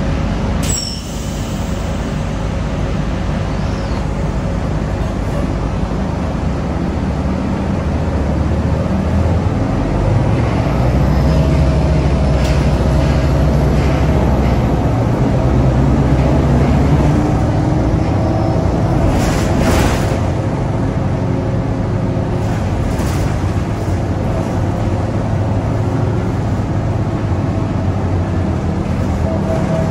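Inside a 2004 NABI 40LFW transit bus under way: its Detroit Diesel Series 50 diesel engine and Allison automatic transmission run with road noise, the engine note rising and growing louder from about eight seconds in, then easing after about eighteen seconds. A short click comes just under a second in, and a brief hiss comes about twenty seconds in.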